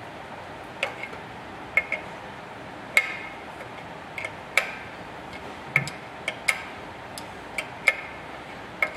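A 9/16 combination wrench on a barb fitting in a quick exhaust valve: irregular sharp metal clicks and clinks, about one or two a second, some with a short ring, as the fitting is wrenched loose.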